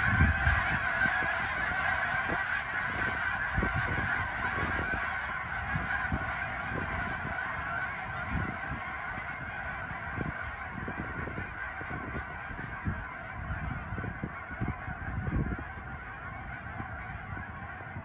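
A large flock of wild geese flying overhead, honking in a dense, continuous chorus of many overlapping calls that slowly fades. Irregular low bumps sit underneath.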